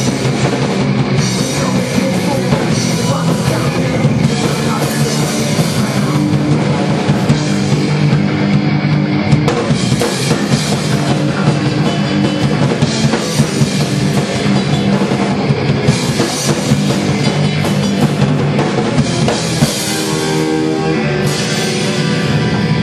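Punk band playing a song live and fast, with the drum kit pounding and guitars driving.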